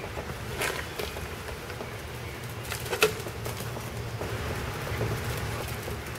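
A few sharp plastic crackles and knocks from a plastic bottle as a puppy plays with it, the loudest about three seconds in, over a steady low rumble and hiss.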